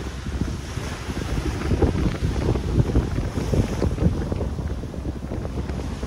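Wind buffeting the microphone in uneven gusts, with small waves breaking on the shore behind it.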